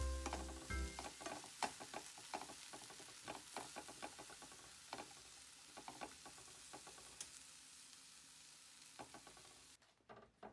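Wooden spatula stirring and scraping dried anchovies, walnuts and peppers in a frying pan, a dense run of small clicks and scrapes over a faint sizzle that slowly fades; it drops away abruptly near the end. Background music with a bass line in the first second.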